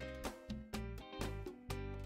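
Background instrumental music, a light tune with notes changing about every half second.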